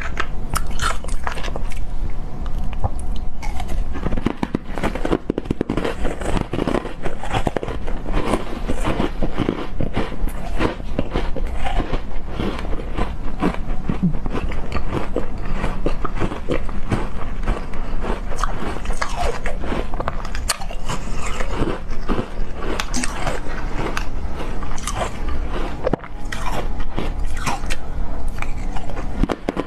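Ice cookies (flat pieces of ice) being bitten and chewed, with continual crunching and many irregular sharp cracks as the ice breaks between the teeth.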